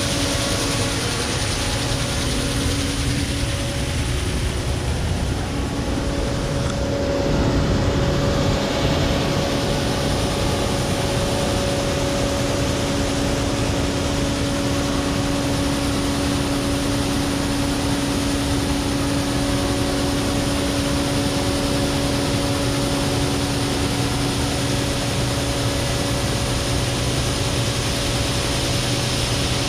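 Case IH 2366 Axial-Flow combine running steadily while harvesting soybeans: a constant machinery drone with a steady hum. It gets slightly louder for a couple of seconds about seven seconds in.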